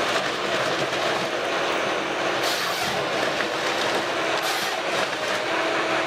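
Heavy machinery running: a steady mechanical din with a held hum, broken by short hissing bursts about two and a half and four and a half seconds in.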